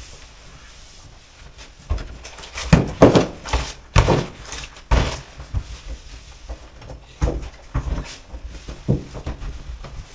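Cloth rubbing on a stainless steel worktop during cleaning, with irregular knocks and scuffs from handling the spray bottle and items. The knocks are loudest about three to five seconds in.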